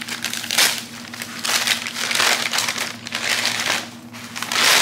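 Packaging crinkling and rustling in irregular handfuls as a store purchase is unwrapped and pulled out of its bag.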